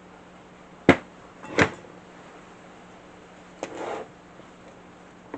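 Knocks and a clatter of table saw parts being handled during disassembly: a sharp knock about a second in, a second knock just after, and a brief clatter a couple of seconds later.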